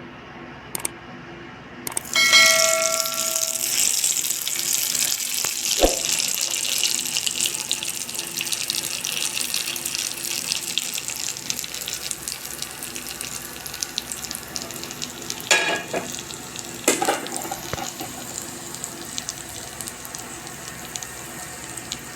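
Hot oil poured from a kadai onto freshly ground red chilli and garlic chutney, sizzling suddenly about two seconds in and slowly dying down. A short metallic ring comes as it starts, and a few knocks follow later as it is stirred.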